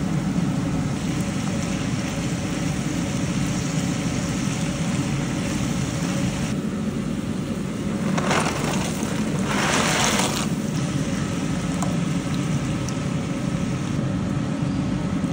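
Dry brown rice penne poured from its cardboard box into a pot of boiling water: a rattling rush about eight seconds in, lasting about two seconds. A steady low rumble runs underneath throughout.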